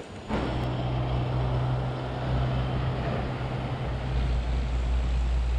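Steady rushing of water over a small river falls, with a steady low hum underneath; it starts suddenly about a third of a second in.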